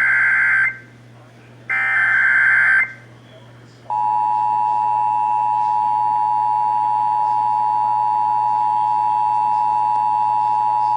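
Emergency Alert System activation. First come the last two bursts of the SAME digital header, each a harsh buzzing data screech about a second long, with a second's gap between them. Then, about four seconds in, the steady two-tone EAS attention signal (853 and 960 Hz) sounds and holds, announcing an emergency alert.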